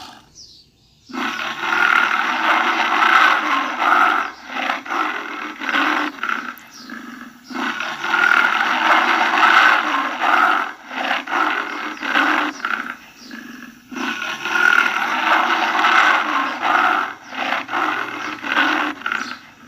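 Tiger roaring in three long bouts, each a sustained roar that breaks up into a run of shorter roars and grunts.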